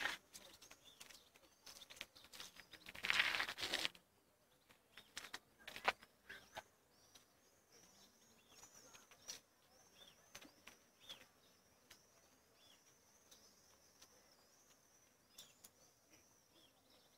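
Small birds chirping and twittering in high, quick notes, near-continuously from about four seconds in. Earlier there is a short loud burst of rustling noise, and soft clicks are scattered throughout.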